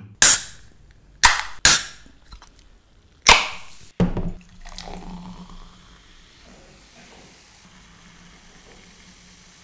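Aluminium soft-drink cans cracked open: four sharp, hissing pops in the first three and a half seconds. Then cola poured from the cans into a glass, fizzing steadily and quietly.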